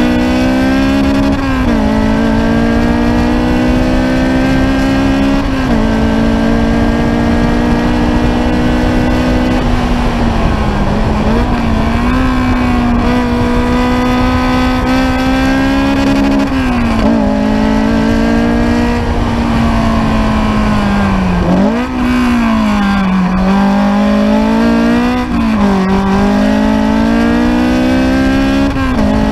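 Ariel Atom's engine running hard on a track lap, heard from the open cockpit. Its pitch holds high for stretches, then drops and climbs again about half a dozen times as the car shifts gears and slows for corners.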